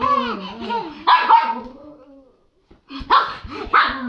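Small white dog barking, with two sharp barks close together near the end.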